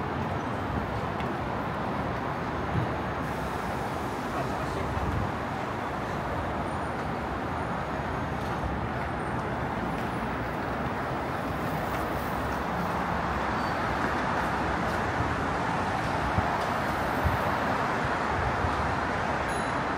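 Steady noise of road traffic, an unbroken wash of passing vehicles that grows slightly louder in the second half.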